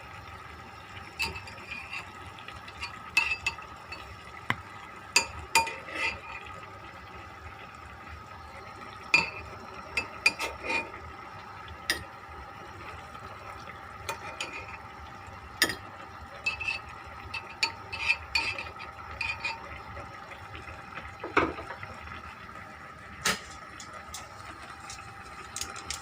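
Spoon and kitchen utensils clinking and scraping against a pot and bowl at irregular intervals, with some sloshing of liquid, as softened kamias are lifted out of the simmering sinigang broth and squeezed. A faint steady hum runs underneath.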